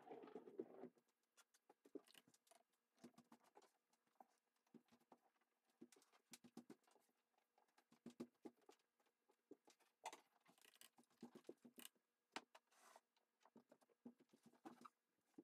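Faint, irregular scratching and tapping of a paintbrush working paint onto watercolour paper in short strokes.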